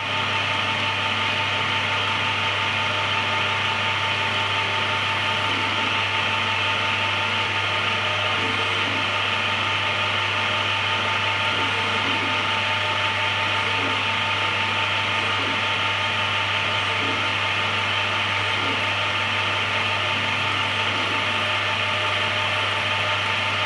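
Home CNC-converted Belfex BF 520C lathe running steadily while machining, its motors giving a constant whine with several held tones and a low hum.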